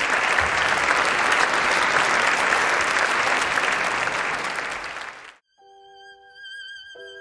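Concert audience applauding steadily, cut off suddenly about five seconds in. A solo violin then plays sustained notes with vibrato.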